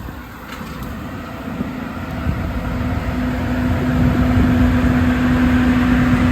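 An engine running steadily, its rumble growing louder about two seconds in, with a steady hum coming in about three seconds in.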